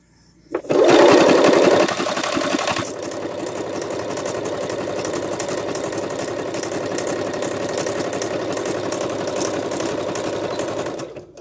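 Electric sewing machine stitching through layered minky fabric. It starts about half a second in and runs loudest for the first couple of seconds, then settles into a steady, quieter run until it stops just before the end.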